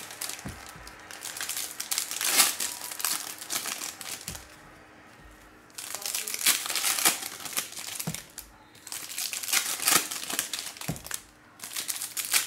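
Foil wrappers of 2022 Topps Update hobby packs crinkling and tearing as the packs are ripped open by hand, in repeated bursts with a couple of short pauses.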